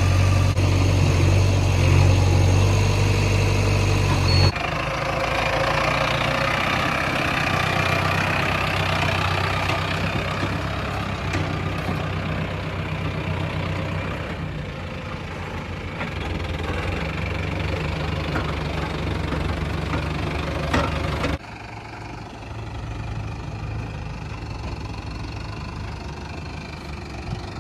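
Diesel engine of a backhoe loader running steadily at work. The engine sound changes abruptly about four seconds in, and again near the end, where it drops noticeably quieter.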